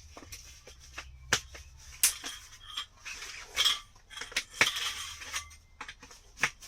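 Metal camp cookware and utensils being handled, clinking and clattering irregularly, with a few sharp knocks.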